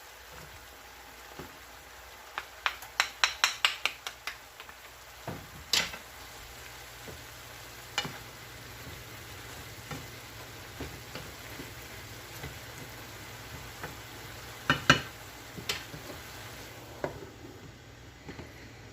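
Chicken breast and mixed vegetables frying in a pan with a low, steady sizzle, while a utensil stirs them and clacks against the pan. There is a quick run of clacks about three seconds in, and the loudest knocks come about fifteen seconds in.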